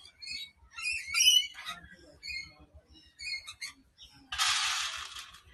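Lorikeets chattering in a series of short, high chirps and squawks. About four seconds in comes one harsh, rasping screech lasting about a second, the loudest call.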